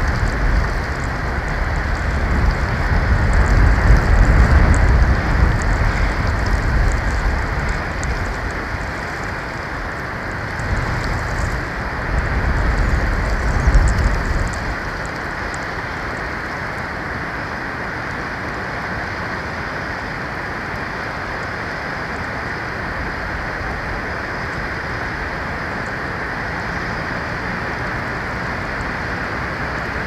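Snowstorm wind on an outdoor nest-cam microphone: a steady rushing hiss, with low rumbling gusts buffeting the microphone through the first half that die away about halfway through.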